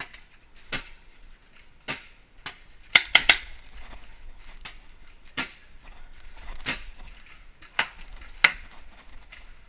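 Paintball markers firing during a game: about ten sharp single pops at irregular intervals, with a quick burst of three shots about three seconds in.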